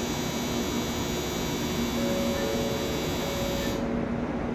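Platform departure bell ringing with a high, even electronic ring that stops suddenly near the end, over the steady low hum of the Shinkansen train standing at the platform.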